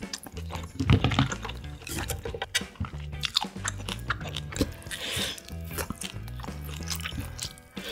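Close-miked chewing and biting of grilled LA galbi (marinated beef short ribs): wet mouth sounds and small crunchy clicks, loudest about a second in. Quiet background music with a repeating low bass line runs underneath.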